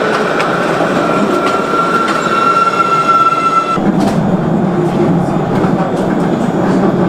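Train running, with a steady high whine that cuts off about four seconds in, after which a lower running noise grows.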